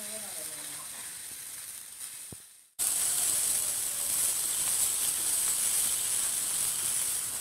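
Marinated snakehead fish pieces frying in hot oil in a pan, a steady sizzle. It drops out briefly near three seconds in, then comes back much louder and hissier.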